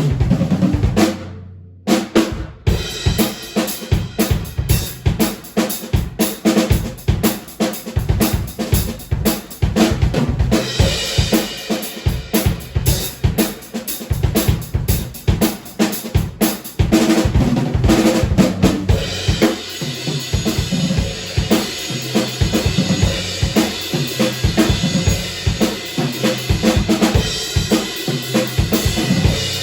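Drum kit played in a continuous groove, a custom SJC snare drum cracking over bass drum, hi-hat and cymbals. The playing drops out briefly about two seconds in, and cymbals ring out more heavily in the last third.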